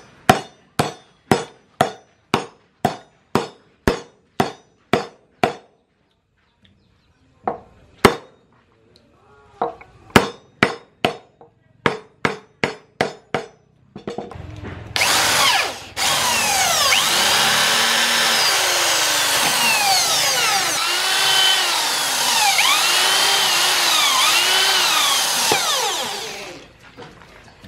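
A hammer strikes a short metal pipe collar being fitted over a wooden machete handle, about two ringing blows a second, then a pause and a second quick run of blows. About halfway through, an electric drill starts boring into the wooden handle and runs steadily for about twelve seconds, its whine rising and falling in pitch, before stopping near the end.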